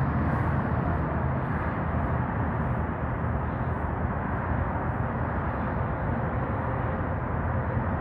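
Steady low outdoor background rumble; the perched raven does not call.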